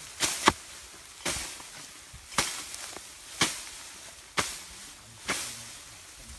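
Repeated sharp impacts, like a tool striking, about one a second, with two quick hits near the start.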